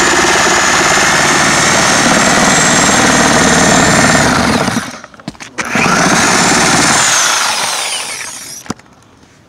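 Corded reciprocating saw cutting through wooden roof decking planks. It runs steadily for about four and a half seconds, stops, then runs again for about two seconds before winding down, with a few faint knocks near the end.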